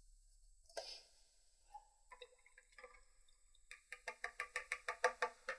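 Dog yapping in a fast, even run of about six yaps a second through the last two seconds, after a light click about a second in.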